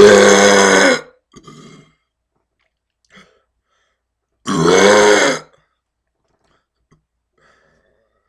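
A man burping loudly twice, each a long pitched burp of about a second, the second coming about four and a half seconds after the first.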